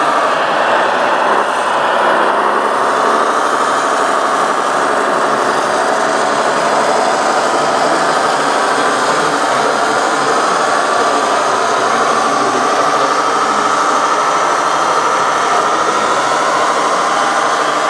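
Radio-controlled model trucks and construction machines running, a steady mechanical whine of small motors with several wavering pitches over one another.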